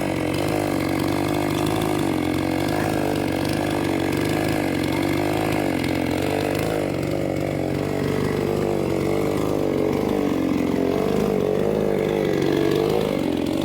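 Chainsaw engine running at high speed through wood, its pitch wavering and sagging under load in the second half, then rising again near the end.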